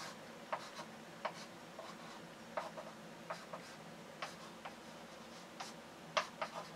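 Chalk on a blackboard: short, irregular taps and scratches of chalk strokes as a diagram is drawn, with a sharper cluster of taps near the end.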